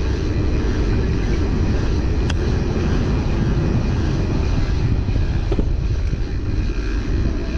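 Wind rushing steadily over the microphone of a camera carried on a moving bicycle, a loud low rumble without any distinct tone.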